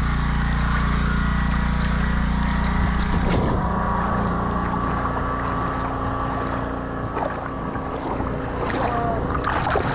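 Boat engine running steadily, its note changing about three seconds in.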